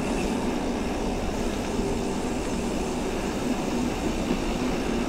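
Gravel bike tyres rolling over a rough trail, a steady rumble with no break.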